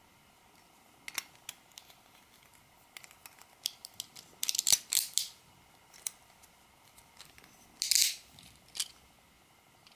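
Hard plastic Beyblade Burst parts clicking and scraping as they are pressed and twisted together by hand. There are scattered single clicks, a dense run of clicks about four to five seconds in, and a short scrape about eight seconds in.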